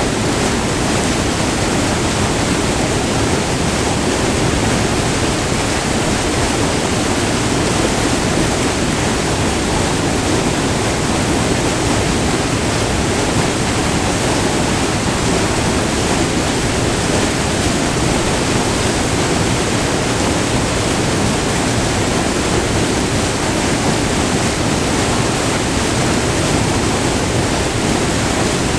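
Multi-tiered river waterfall rushing steadily, white water pouring over rock close by.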